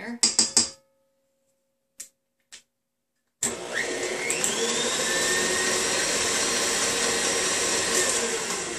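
A few quick clicks of a spatula against the steel mixing bowl. About three and a half seconds in, an electric tilt-head stand mixer switches on, its motor whine rising as it comes up to speed, and runs steadily beating butter-and-sugar cookie dough, beginning to fade near the end.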